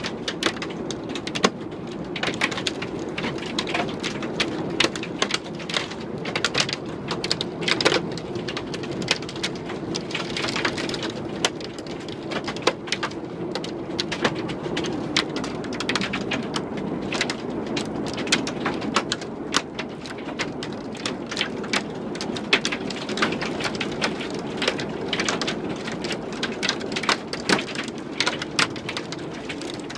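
Hail and heavy rain beating down, a steady rush studded with dense, irregular sharp clicks of hailstones striking the window glass and building.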